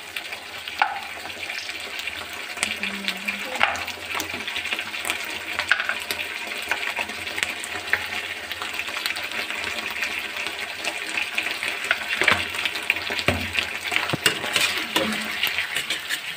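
Onions and capsicum sizzling in sauce in a kadhai, with a spatula scraping and tapping against the pan as they are stirred. The taps come more often and louder over the last few seconds.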